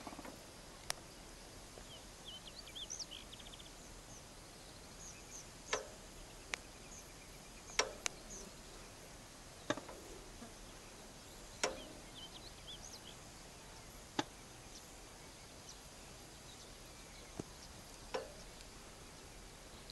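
Quiet open-air ambience with a steady hiss and faint, scattered bird chirps. About ten sharp clicks and knocks come at irregular intervals.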